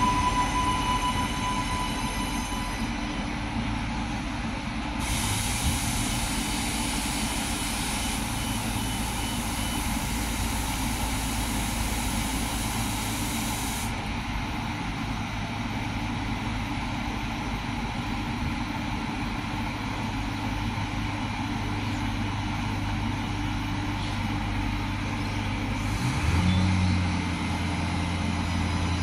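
Diesel railcar standing at a platform with its engine running steadily, and a hiss of air for several seconds about five seconds in. Near the end the engine note changes to a steadier, deeper hum.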